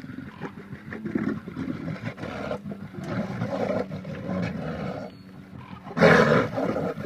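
Deep, rough roaring calls of a large animal, repeated over several seconds; about six seconds in a louder call begins abruptly.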